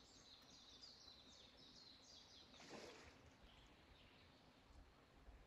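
Near silence: faint outdoor ambience, with faint high, quickly repeated chirps fading out in the first second and a brief soft swish nearly three seconds in.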